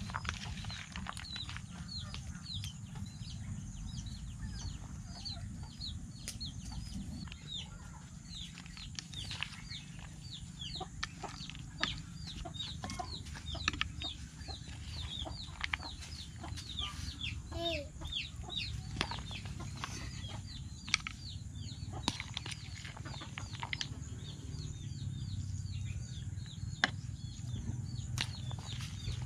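Chickens peeping: a rapid, continuing run of short, high, falling chirps over a low rumble. Occasional sharp clicks from a metal spoon against the bowl and tray.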